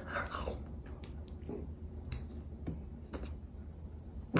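Faint, irregular clicks and mouth sounds of someone biting into and eating an ice-cream bar, roughly one every half second, with a louder short noise right at the end.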